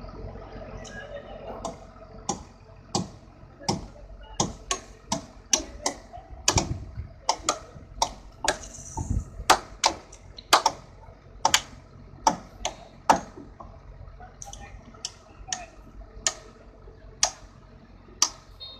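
Hammers striking nails into wooden concrete formwork: sharp, irregular knocks, roughly two a second, over a faint steady hum.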